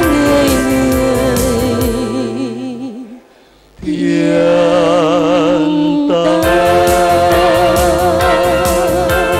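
A man and a woman singing the closing notes of a two-part Christmas hymn to a backing track, holding long notes with vibrato. The music drops out for under a second about three seconds in, then both voices come back in on sustained notes in harmony over the beat.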